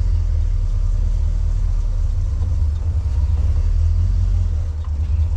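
Off-road vehicle's engine running at low revs with a steady low rumble, as when crawling over a rocky trail.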